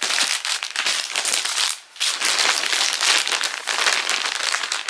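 Plastic packaging bag crinkling and rustling as it is handled and opened to take out clothing, with a brief pause about two seconds in.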